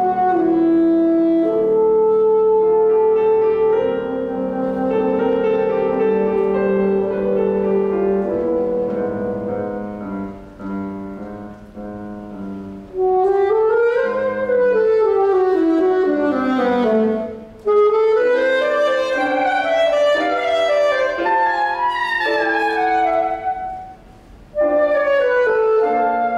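Saxophone playing a classical piece: long held notes at first, a softer stretch, then fast runs sweeping up and down through the second half, with a brief pause near the end before the playing resumes.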